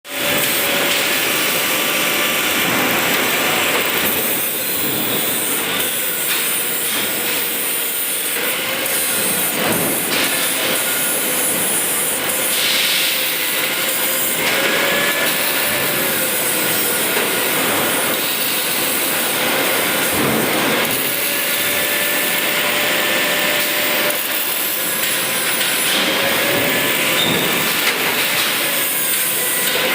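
ABB industrial welding robot at work: the continuous harsh sizzle of the welding arc, with a faint whine that slowly rises and falls in pitch.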